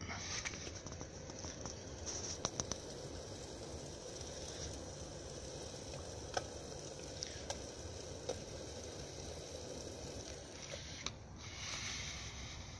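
Wood pellets burning in a small tin-can wood-gas stove: a steady hiss with scattered sharp crackles every second or so.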